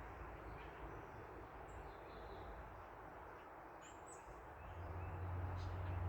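Outdoor backyard ambience: scattered short bird chirps over a steady hiss of distant traffic. Near the end, the low rumble of a passing car swells up.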